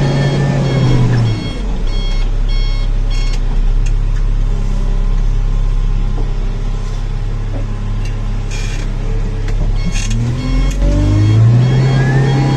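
JCB backhoe loader's diesel engine heard from inside the cab, dropping from working revs to a low idle about a second in, then revving back up near the end.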